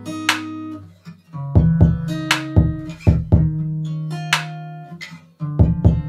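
Background music: plucked guitar notes over a bass line, with deep kick-drum thumps.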